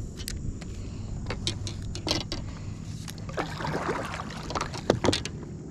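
Paddle strokes in water: the blade of a stand-up paddle dipping and pulling, with splashes, drips and a few sharp clicks, and a louder swirl of water a little over three seconds in.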